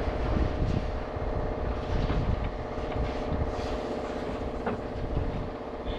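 An engine running steadily, with a few light metallic clicks.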